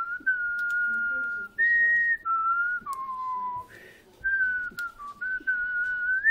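A person whistling a slow tune: clear single notes held for up to a second or so, stepping up and down in pitch.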